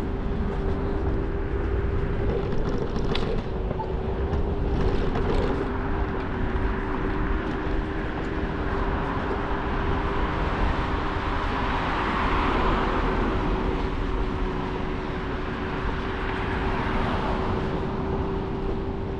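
Scooter riding along with a steady motor whine and wind rumbling on the microphone; a broader rushing noise swells and fades around the middle.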